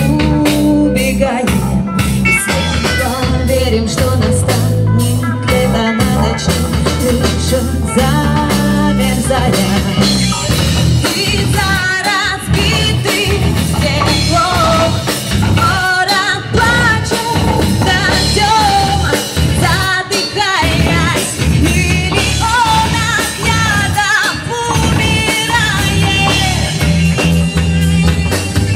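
Live rock band playing loudly through amplifiers: a woman singing lead over electric guitar, bass guitar and drum kit. The singing drops out near the end while the band plays on.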